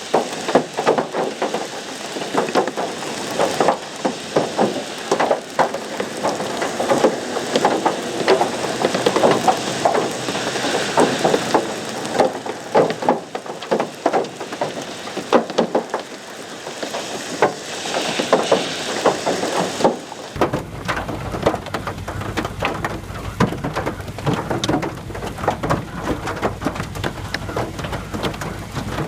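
Hail and heavy rain pelting down: a dense, continuous clatter of sharp impacts over a rushing hiss. About twenty seconds in, a low rumble joins it.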